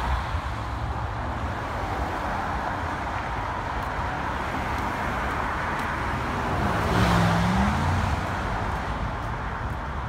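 Road traffic passing on a multi-lane street, a steady wash of tyre and engine noise picked up by an iPhone 6s Plus's built-in microphone. A louder car goes by about seven seconds in, its low engine hum dipping and then rising in pitch.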